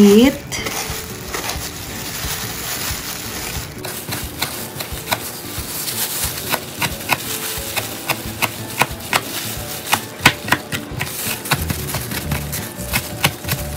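Kitchen knife chopping fresh dill on a plastic cutting board: a run of sharp, irregular taps of the blade on the board, several a second, becoming distinct about four seconds in.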